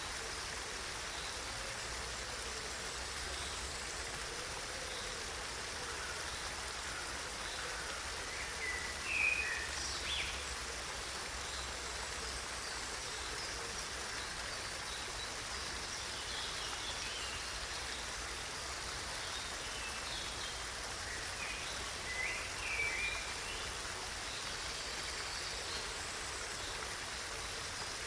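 Steady rush of flowing stream water. A bird chirps briefly in two short bursts, about a third of the way in and again about three-quarters of the way through.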